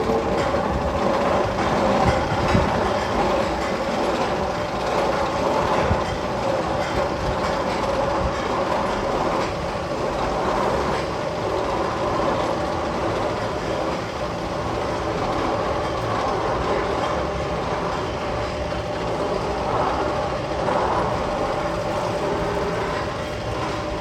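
A continuous, steady train-like rumble and clatter with a constant hum beneath it. It is one of the Magnum XL 200 tunnel's sound effects.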